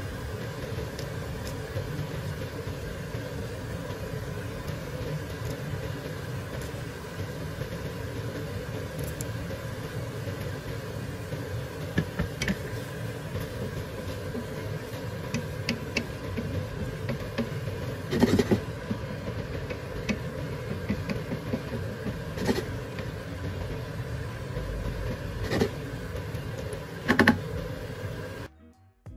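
Wooden spatula stirring a frying pan of simmering shrimp in tomato sauce, knocking against the pan a few times in the second half, over a steady mechanical hum.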